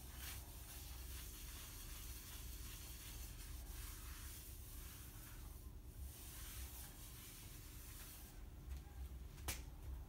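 Cloth rubbing boiled linseed oil into a turned oak bowl: a soft swishing hiss that rises and falls with each wiping stroke. A single sharp click comes near the end.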